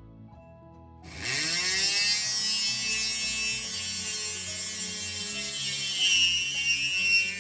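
Handheld rotary tool switched on about a second in, its whine rising as it spins up and then running steadily at high speed as its diamond tube bit drills into glass. Quiet background music plays underneath.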